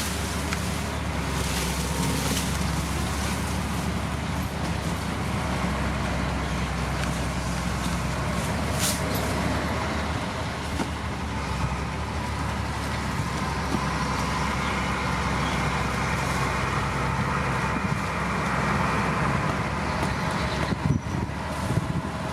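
Diesel engines of heavy earthmoving machinery running steadily. A brief sharp noise comes about nine seconds in, and a few short knocks near the end.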